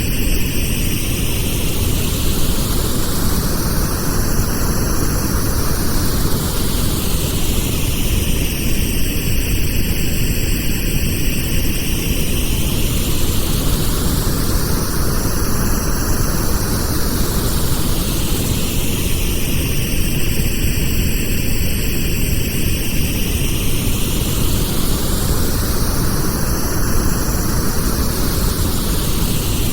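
Pink noise: a steady, even rushing hiss, heavier in the low end, with a slow sweeping whoosh that rises and falls about every eleven seconds.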